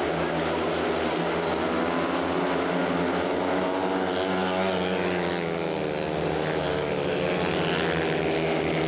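Two 500 cc GM single-cylinder speedway motorcycle engines running at racing revs, their pitch wavering up and down as the riders throttle through the bends.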